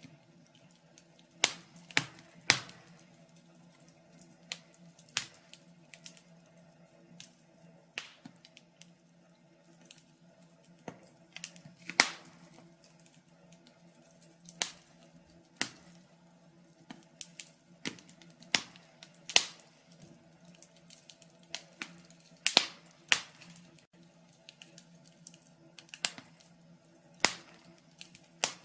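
Wood fire crackling: irregular sharp pops and snaps, a few every couple of seconds, over a faint steady low hum.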